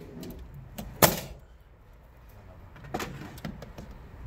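Pneumatic framing nailer firing a nail into OSB sheathing: one sharp bang about a second in, followed by a few lighter knocks about three seconds in.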